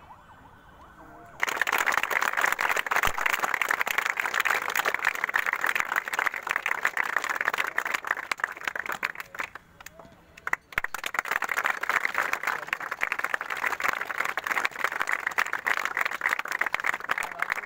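A group of people clapping in sustained applause that starts suddenly about a second and a half in, dips briefly about ten seconds in, then picks up again.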